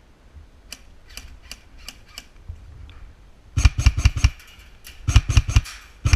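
Airsoft guns firing: faint scattered shots in the first couple of seconds, then two loud rapid bursts of about six shots each, about three and a half and five seconds in.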